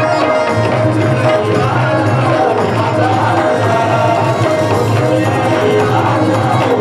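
Live band music between sung lines: drums keeping a steady beat under a melodic instrument playing held notes, over a steady bass line.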